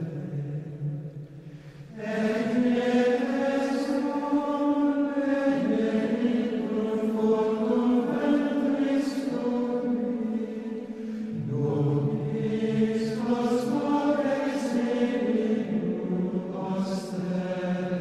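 Background music of slow sung chant, long notes held for several seconds at a time.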